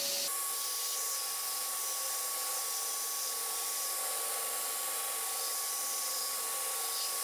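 Belt grinder running with a steady whine while a steel knife blade is ground against the abrasive belt, a continuous hissing scrape. The whine jumps to a higher pitch about a third of a second in.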